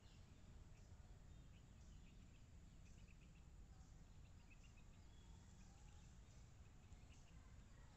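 Near silence: faint outdoor ambience, a low steady rumble with scattered faint high chirps.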